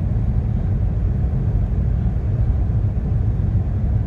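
Steady low rumble aboard a boat under way at sea.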